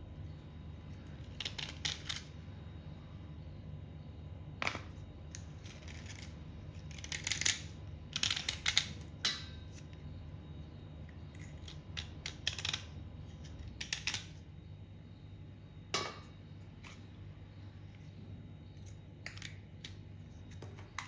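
Knife blade scraping layers off soaked white clay blocks in short strokes, some single and some in quick runs, every second or two. A low steady hum runs underneath.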